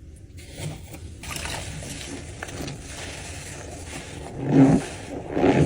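A soaked sponge being squeezed and rinsed: wet squelching and squeaking, with two louder squeezes about four and five seconds in.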